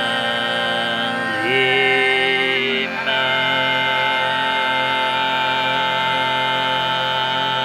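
Overtone singing: a held low vocal drone with a bright overtone melody above it that steps to a new pitch about one and a half seconds in and again about three seconds in, then holds steady.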